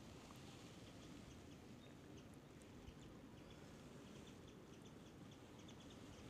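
Faint small birds chirping in short, quick runs of high notes over a quiet, low background hum.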